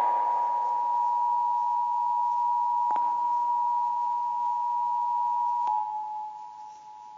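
Emergency Alert System attention signal: a steady two-tone alert tone, the pair of pitches sounding together without a break, fading out near the end.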